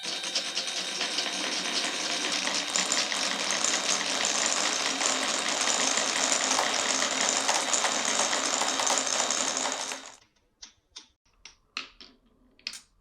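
Many glass marbles rolling and rattling together along a wooden marble-run track, a dense continuous clatter that stops suddenly about ten seconds in. It is followed by a handful of separate sharp clicks as single marbles knock against wood and each other.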